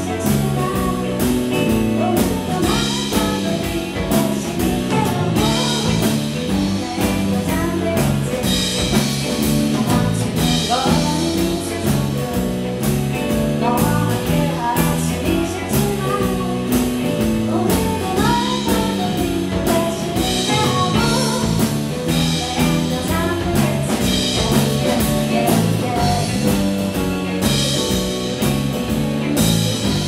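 Live song: a woman singing with a strummed acoustic guitar, in a steady rhythm.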